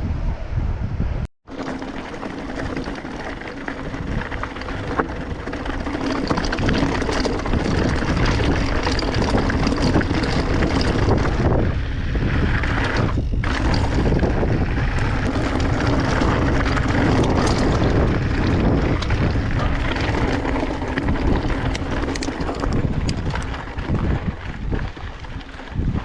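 Wind buffeting the microphone while a mountain bike is ridden over rough ground, with constant rattling and clicking from the bike. The sound cuts out for a moment about a second in.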